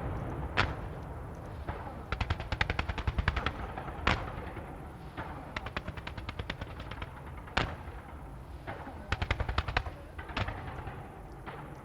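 Fireworks display: a single sharp shell burst about every three and a half seconds, with rapid strings of small pops, about ten a second, in between.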